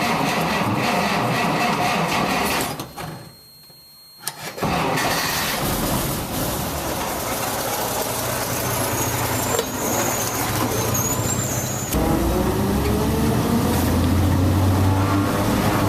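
1946 Dodge pickup's flathead straight-six engine running, dropping out for about two seconds near the start, then running again; in the last few seconds its pitch rises as the engine revs.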